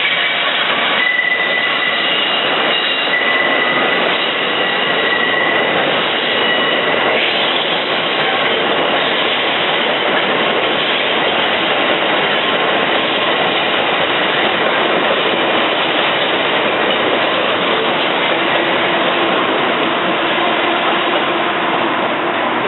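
Train moving on the rails with a steady, loud running noise. A thin, high-pitched wheel squeal holds for the first several seconds, then fades into the rolling noise.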